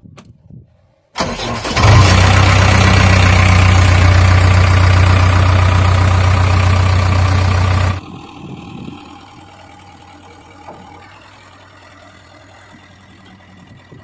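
JCB 3DX backhoe loader's diesel engine being started with the ignition key: a faint click, then about a second in it cranks and catches and runs very loud and steady close to the microphone. About eight seconds in the sound drops to a much quieter steady idle.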